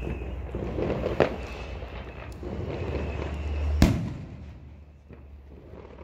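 Open wood fire under a cast-iron cauldron crackling, with two sharp cracks, the louder one just before four seconds in, over a low rumble.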